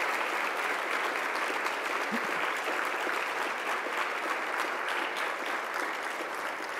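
Large audience applauding: a dense, steady mass of hand claps that starts to die down near the end.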